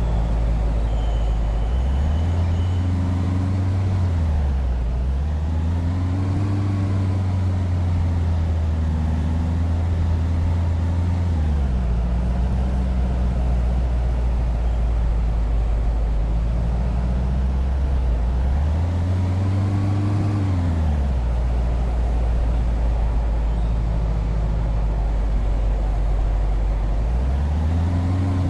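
A vehicle's motor running with a steady low drone that shifts up and down between two low pitches several times, each change a short glide.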